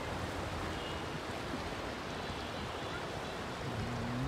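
Steady rush of the Ganges river's flowing water, with a faint voice beginning near the end.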